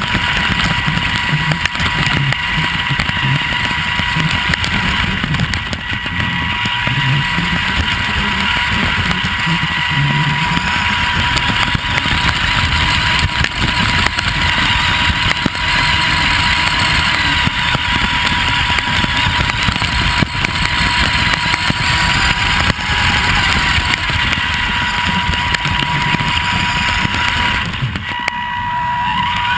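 Vaterra Twin Hammers electric RC truck driving through grass, heard from a camera mounted on the truck: a steady high whine over a constant rough rumble of the chassis and tyres. The whine drops out briefly near the end.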